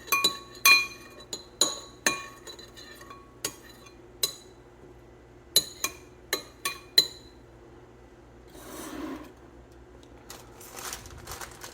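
A spoon clinking and scraping against a bowl while spreading enchilada sauce over its bottom: about a dozen light, ringing clinks over the first seven seconds, then a soft rustle.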